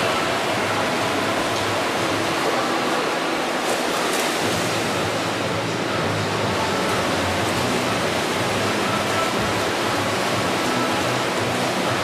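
Steady splashing and churning water from several freestyle swimmers racing in an indoor pool hall.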